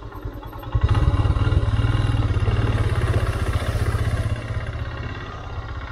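Motorcycle engine running while the bike is ridden, a low pulsing engine note; the throttle opens about a second in and eases off a little past the middle.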